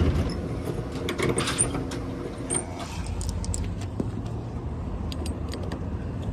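Keys jangling with a run of small metal clicks and knocks as a new lock is handled and fitted on a drink vending machine, over a steady low hum.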